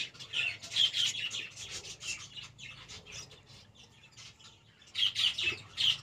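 Budgerigars chirping and squawking in quick, short, high calls, busy for the first two seconds, thinning out, then picking up again near the end.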